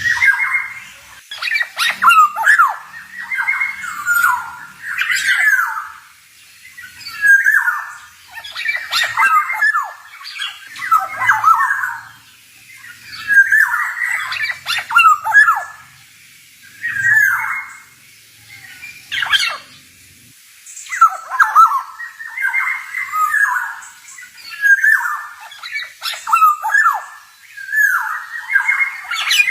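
Male black-naped oriole (kepodang) singing: about a dozen phrases of one to two seconds each, with short pauses between them.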